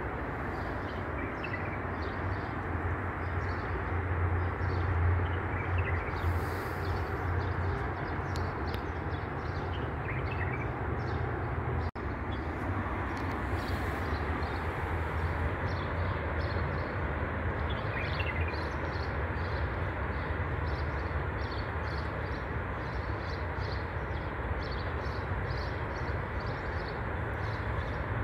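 Steady low outdoor rumble under many small wet clicks of cats chewing soft food, with a few short high chirps.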